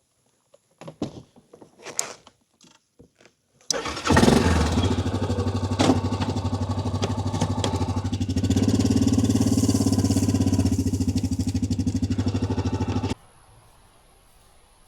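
A few light knocks and clicks, then a small petrol engine suddenly runs loud and steady with a fast, even pulsing for about nine seconds before cutting off abruptly.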